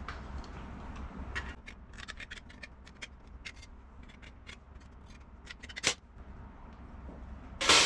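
Hand snips cutting thin 24-gauge sheet steel: a string of irregular short clicks and snips, with a sharper click about six seconds in and a louder metallic clank at the end.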